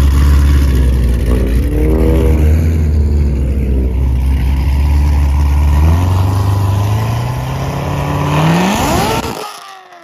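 A car engine running loud at low revs with its pitch wavering, then revving up in a steady rising climb for about three seconds before it cuts off suddenly near the end.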